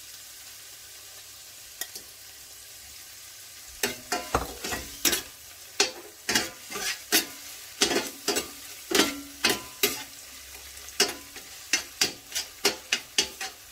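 Crab meat frying in oil in a stainless steel pan, with a steady sizzle. From about four seconds in, a metal spoon stirs and scrapes against the pan in sharp strokes, about two a second.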